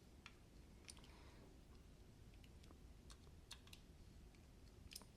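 Faint, scattered clicks of a folding knife being handled while it is checked for blade play, with five or six light ticks spread over a few seconds.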